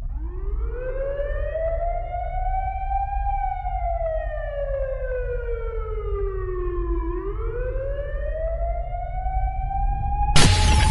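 Siren sample opening a slowed-down rap track: one wailing tone that slowly rises, falls over several seconds and rises again, over a low bass rumble. A short burst of noise comes in near the end.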